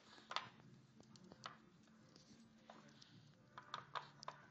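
Chihuahua working at a puzzle toy: scattered light taps and clicks, the sharpest about a third of a second in and a quick cluster near the end.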